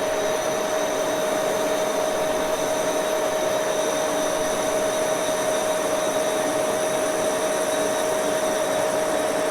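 Axelson lathe running steadily, with a continuous high-pitched squeal over its running noise.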